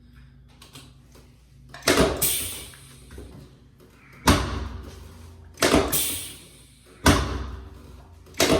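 Chiropractic drop table: sharp clunks as the padded sections snap down under the adjuster's thrusts, about one to two seconds apart and some in quick pairs.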